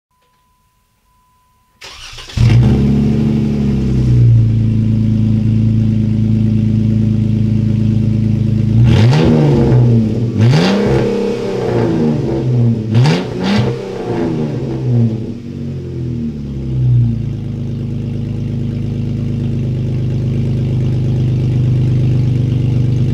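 2015 Jeep Wrangler JK's 3.6-litre V6 run with no muffler at all: it cranks and catches about two seconds in, flares up, then settles to a loud idle. Between about 9 and 17 seconds it is revved in several short blips, rising and falling, before going back to a steady idle.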